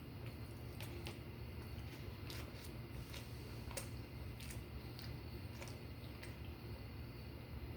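Close-up eating sounds: scattered sharp mouth clicks and soft squishy chewing of a hashbrown casserole, about a dozen clicks spread irregularly, over a steady low hum.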